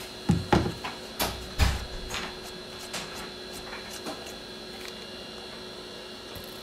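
Sharp clicks and knocks from a precision screwdriver working one of the pentalobe screws in the bottom edge of an iPhone XS Max. They come in a quick cluster in the first two seconds, then a few fainter ticks, over a steady electrical hum.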